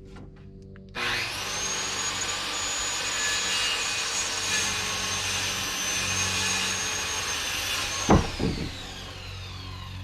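Electric power saw starting abruptly and cutting a board, with a high steady whine over the noise of the cut for about seven seconds. Near the end there are two sharp knocks, then the blade spins down, its whine falling in pitch as it fades.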